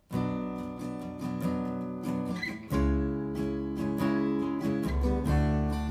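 Acoustic guitar strumming starts a song right after a count-in, with full chords struck in a steady rhythm. About three seconds in, deep low notes join and the music gets louder.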